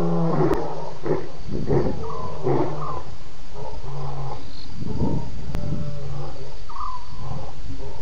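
Lions roaring: a run of short, grunting roars about a second apart, the tail end of a roaring bout.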